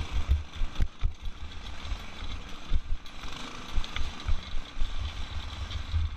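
Off-road go-kart's small engine running under throttle through its torque converter as the kart crosses rough, grassy ground, with wind buffeting the onboard microphone and a few sharp knocks from the kart jolting over bumps.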